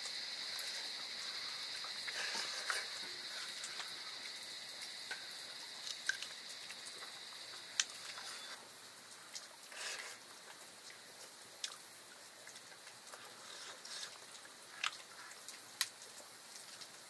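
Faint, steady, high-pitched insect drone that stops about eight and a half seconds in, with scattered light ticks and drips throughout.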